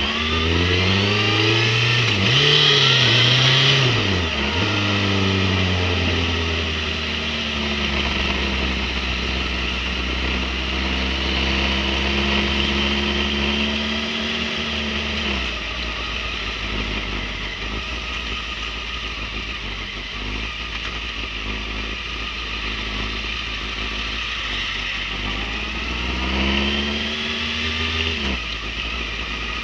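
Motorcycle engine riding in traffic: revs rise and fall through gear changes in the first few seconds, then hold steady. About halfway through they drop to a low, steady idle, with one short rise and fall of revs near the end.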